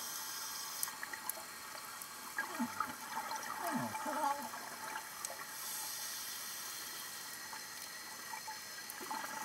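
Scuba diver breathing through a regulator underwater: a hissing inhale at the start, a stretch of bubbling, gurgling exhaust between about two and four and a half seconds in, and a second hissing inhale about six seconds in.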